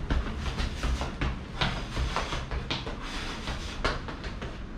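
Quick, light footsteps of sneakers on a tiled floor during agility-ladder footwork: short taps at about three or four a second, unevenly spaced.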